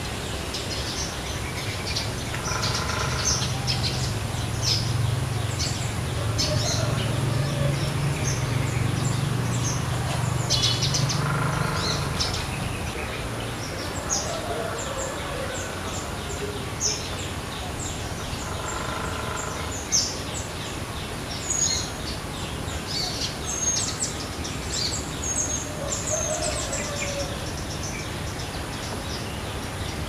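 Small flowerpecker birds calling: many short, sharp, high-pitched chirps and ticks, with another bird's lower call repeating three times and a low hum through the first half.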